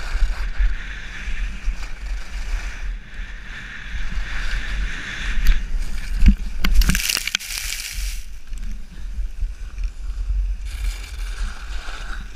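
Skis scraping over packed snow, with wind rushing over the microphone. About six seconds in comes a loud tumbling crash of scraping and thudding as the skier falls and slides through the snow. It is quieter after that, with a short spell of scraping near the end.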